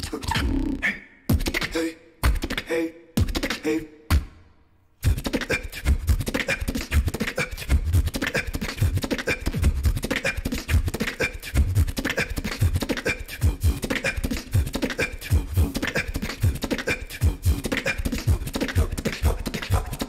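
Solo beatboxing into a microphone: short stop-start phrases broken by brief gaps, a pause of about a second just before five seconds in, then a dense, steady beat with deep bass hits from about five seconds on.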